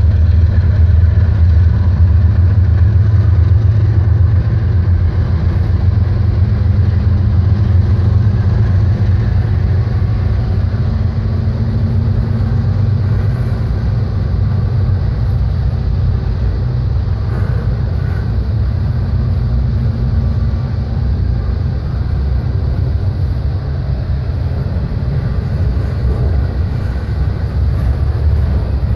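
Double-stack intermodal container train's well cars rolling past on the main line, a loud, steady low rumble of wheels on rail.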